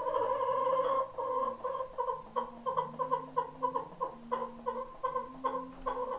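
Hen calling: one drawn-out note, then a run of quick clucks on the same pitch, about four a second.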